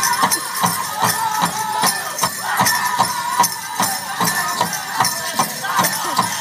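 Powwow drum group singing over a steady drumbeat, about two to three strokes a second, for a men's northern traditional duck-and-dive song, with dancers' bells jingling.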